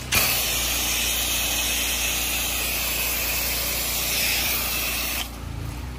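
Soft-wash spray wand jetting liquid onto vinyl siding and leaf-covered ground, a steady hiss that starts at once and cuts off about five seconds in.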